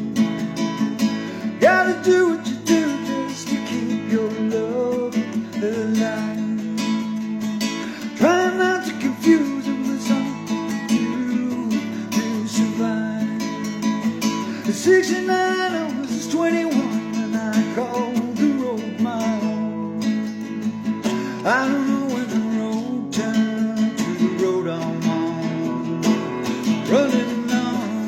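Music: acoustic guitar strumming under a steady held low note, with a sliding melody line that swoops up in pitch every few seconds.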